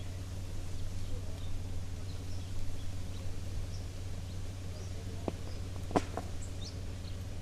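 A 4x4's engine idling with a steady low hum, with faint bird chirps over it. A couple of sharp clicks come about five and six seconds in, the second the loudest.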